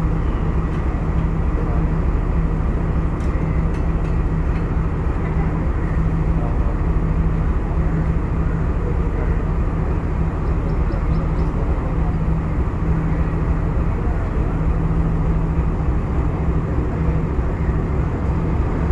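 Class M9 diesel-electric locomotive's engine idling while standing, a steady deep drone with a constant hum over low rapid pulsing. A few faint clicks sound about three to four seconds in.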